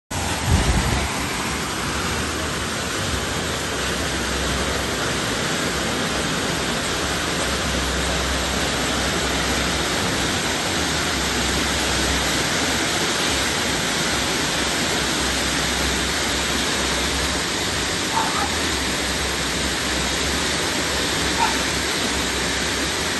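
Bada Peacock pink fountain firework spraying sparks with a steady, even hiss, starting with a brief louder burst in the first second.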